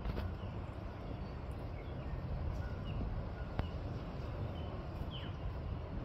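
Outdoor garden ambience: a steady low rumble with faint, scattered short bird chirps, one a falling note about five seconds in, and a single sharp click a little past the middle.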